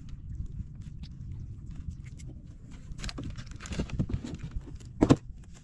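Knocks and clatter of handling in a small outrigger fishing boat over a steady low rumble, busier in the second half, with one sharp thump about five seconds in.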